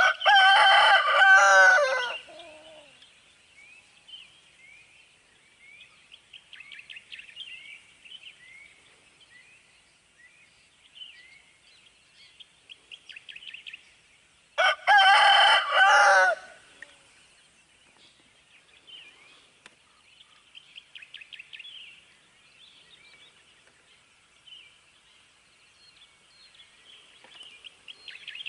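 A rooster crows twice, about fifteen seconds apart, each crow lasting about two seconds. Small birds chirp faintly in between.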